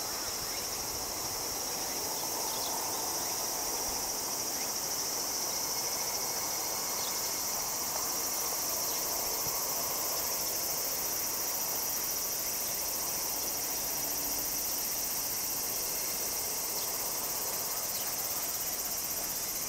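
Evening insect chorus in grassland: a steady, high, unbroken trilling, with a few faint short chirps over it.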